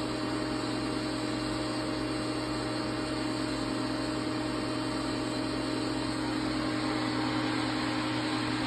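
Steady electrical hum and whir of a powered-up 1997 Fadal 15-XT CNC vertical machining centre at its open control cabinet: a low drone with a higher steady tone over a constant hiss.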